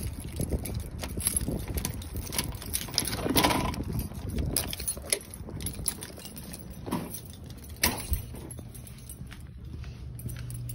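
A bunch of keys jangling and clicking as a key is turned in a door lock, then the door opening, with scattered knocks and clicks. A low steady hum comes in near the end.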